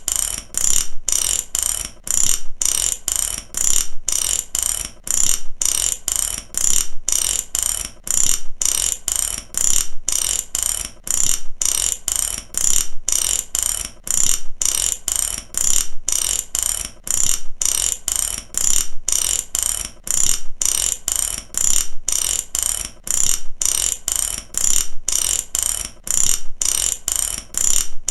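Ratchet wrench's pawl clicking rapidly and metallically, in repeated runs broken by short pauses about every second and a half, as the handle is swung back and forth.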